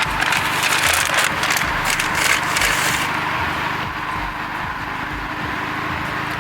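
Cabin noise inside a 2017 Chevrolet Camaro 2.0 at low speed, a steady low rumble of engine and road. For about the first three seconds a crackling, rustling hiss rides over it, then dies away.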